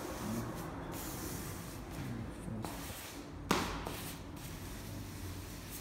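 Grout float scraping and swishing wet grout across floor tiles in sweeping strokes, with one sharp knock about three and a half seconds in.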